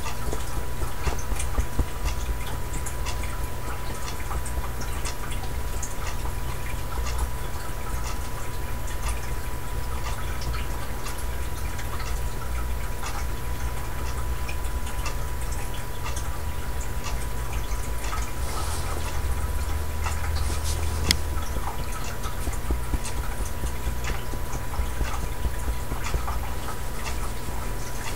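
Steady low electrical hum with a thin steady high tone above it, the background noise of the recording, with scattered faint ticks and taps throughout and one slightly sharper click about three-quarters of the way through.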